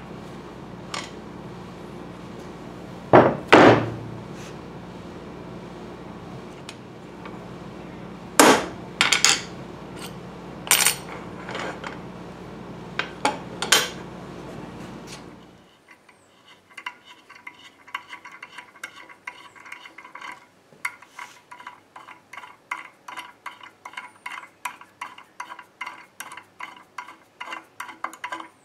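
Steel parts knocked and set down on a wooden workbench, a few loud sharp clanks over a steady hum. From about halfway on, a hand tap wrench turning a tap into the steel plate clicks evenly, about three times a second, with a light metallic ring.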